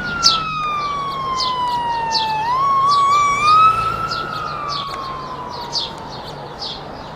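An emergency vehicle's siren wailing: its pitch slides slowly down, warbles briefly about two and a half seconds in, rises again, then slides down and fades. A bird chirps over and over.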